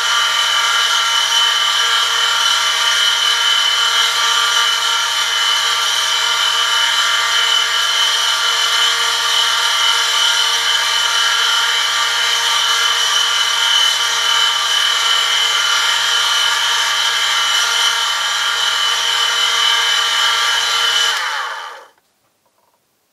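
Oil friction tester, an electric motor spinning a steel ring against a test sample loaded by a 1 kg lever weight and lubricated with 5W-30 motor oil at 100°C: a loud, steady high-pitched squeal of metal rubbing on metal over a low motor hum. About 21 seconds in the motor stops and the pitch falls as it winds down.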